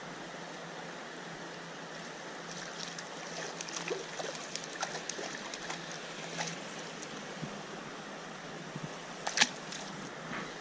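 Steady rush of trout-stream water, with scattered light ticks between about two and seven seconds in and one sharp click about nine seconds in.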